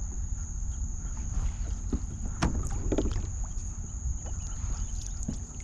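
Old Town Sportsman Salty kayak gliding quietly over shallow water, with a low wind rumble on the microphone and a few light knocks and drips near the middle. A faint steady high-pitched tone runs underneath.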